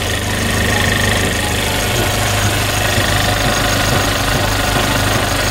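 Audi A1's 1.4 TFSI four-cylinder petrol engine idling steadily, running smoothly without sputtering on freshly replaced intake manifold and throttle-body seals.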